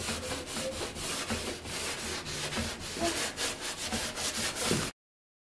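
Sponge loaded with baking soda scrubbing built-up grease on a stainless-steel stovetop: a gritty rubbing in quick repeated back-and-forth strokes. It cuts off abruptly near the end.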